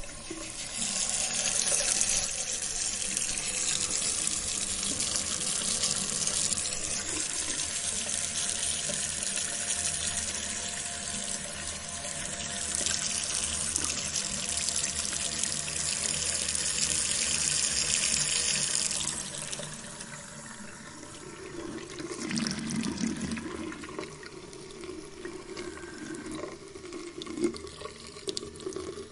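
Water running steadily as an even hiss, stopping about nineteen seconds in; quieter sounds with a few clicks follow.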